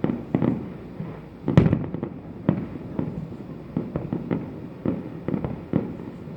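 Fireworks shells bursting at a distance, a steady run of bangs about one or two a second, each with a short rumbling echo; the loudest comes about one and a half seconds in.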